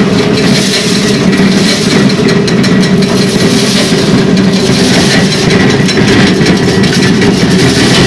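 Corn sheller running loudly and steadily, a constant machine hum with a dense rattle of kernels as a maize ear fed into its throat is stripped from the cob.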